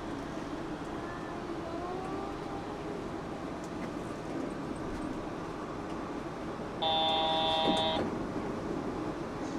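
Interior running noise of a Yurikamome automated train pulling into a station, with a faint rising whine early on. About seven seconds in, a loud, steady electronic buzzer tone sounds for about a second: the door signal at the station stop.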